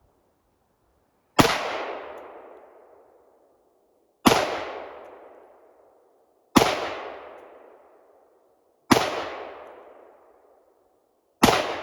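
Five rifle shots fired one after another, about two to three seconds apart, each followed by a long echo that dies away.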